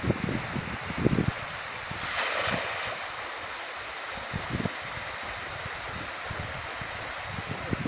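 Shallow river water running steadily, with a brief splashing rush about two seconds in as a cast net lands on the water.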